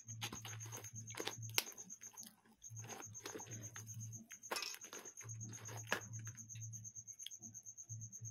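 Crackles and taps of crisp fried snacks being handled on a steel plate, with a few sharp clicks spread through, over a steady faint hum.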